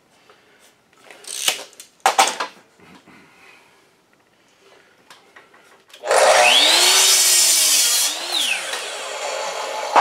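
Hitachi sliding compound miter saw starting up about six seconds in, its motor whine rising as the blade cuts a pressure-treated board, then falling away as the trigger is released and the blade winds down. Before it, a few light knocks as the board is set against the fence.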